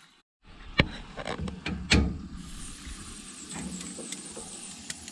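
Two knocks, then from about halfway a steady low hum with a high hiss: the newly fitted central heating circulating pump switched on and running, pushing water round the system.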